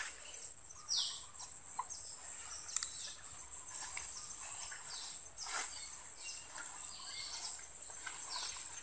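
A steady high-pitched insect drone, with a bird call that sweeps downward about a second in and again near the end. Soft rustling steps through grass, and a sharp click about three seconds in.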